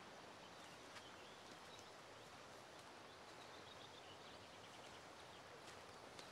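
Near silence: faint outdoor ambience with a soft hiss, with faint high chirping through the middle seconds.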